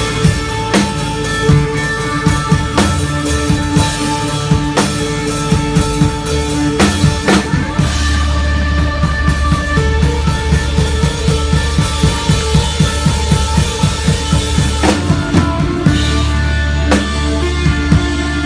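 Post-hardcore band playing live on guitars, bass and drums. About eight seconds in, the drums break into a fast, steady run of kick-drum hits under a heavy, held bass note, followed by a couple of loud crashes near the end.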